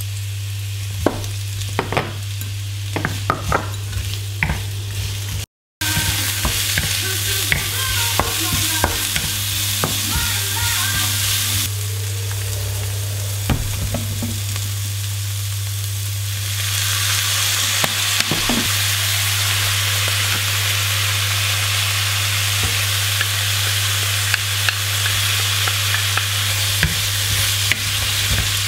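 Julienned carrots and zucchini sizzling in a nonstick wok while being stirred with a wooden spatula, with scattered scrapes and taps of the spatula against the pan. The sizzle grows louder and brighter about sixteen seconds in, and the sound cuts out briefly a few seconds in.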